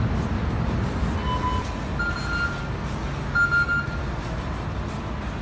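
Three short electronic beeps from ferry terminal fare-card readers as passengers tag off, the first lower, the other two higher, over a steady low rumble.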